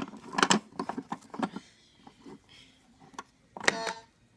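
Plastic toy car clicking and rattling as it is pushed along a plastic toy track, then a short pitched sound about three and a half seconds in.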